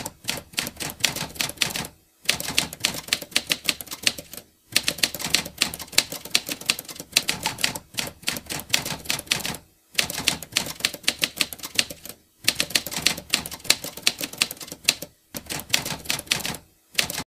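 Typewriter typing sound effect: rapid key clacks in six runs of a few seconds each, broken by short pauses.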